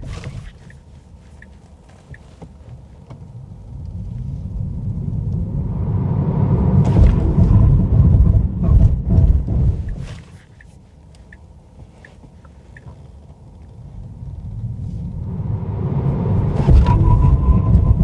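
In-cabin road and tyre rumble of a Tesla Model 3 Highland: a low noise that builds as the car speeds up, falls away to a low hum when it stops about ten seconds in, then builds again near the end. In the quiet stretches while it stands still, the hazard-light indicator ticks faintly.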